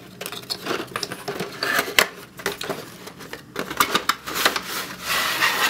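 Cardboard game box being handled and its lid lifted off: a run of light taps, clicks and rustles of card, with a longer sliding scrape near the end as the lid comes free.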